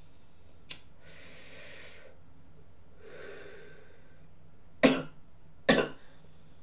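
A man breathes in and out, then coughs twice, under a second apart; the coughs are the loudest sounds. A single sharp click comes shortly before the breaths.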